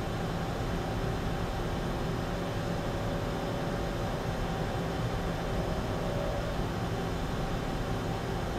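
Steady drone of running machine-shop machinery: a low hum under an even hiss. A faint, steady whine comes in about two and a half seconds in and stops about four seconds later.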